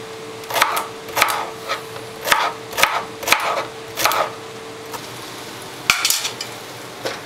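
Chef's knife chopping a celery stalk on a cutting board, a chop about every half second for about four seconds. After that, a few scattered sharper knocks.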